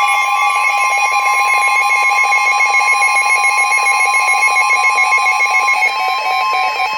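Weather radio alert alarm: a loud warbling electronic alarm over a steady tone, the signal that a new weather warning broadcast is about to be read.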